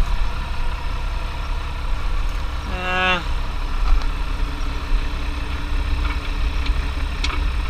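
An engine idling steadily with a low rumble, and a brief falling-pitched squeak or vocal sound about three seconds in.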